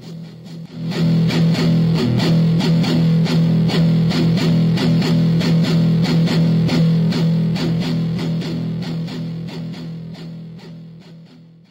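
Closing theme music of the podcast: a guitar playing a fast, even rhythm over a sustained low note. It swells up about a second in, then fades out near the end.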